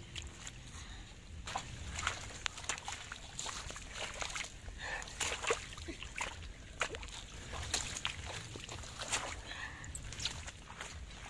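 Hands sloshing and splashing through shallow muddy water and wet grass while grabbing a fish, with irregular small splashes and drips throughout.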